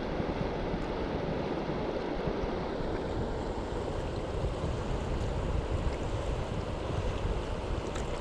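Steady rushing noise of wind on the microphone and lake water, with no distinct events.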